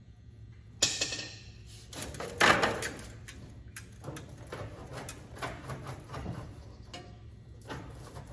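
Knocks and clatter of parts being handled during repair work: a sharp, ringing clank about a second in, a louder clatter a little after two seconds, then scattered smaller knocks and rattles.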